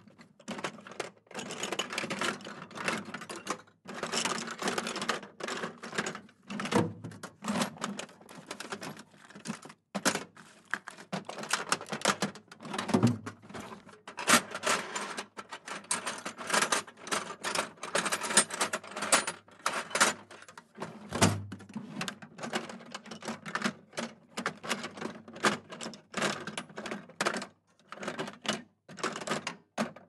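Hand tools being rummaged through in a metal toolbox: dense, irregular metallic clinks and clatters as tools are moved around and knock together, with a few heavier knocks among them.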